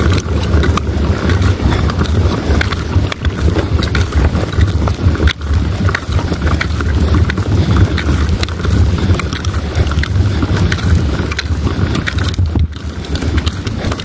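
Wind buffeting the camera microphone: a loud, uneven low rumble with scattered small clicks and knocks from handling.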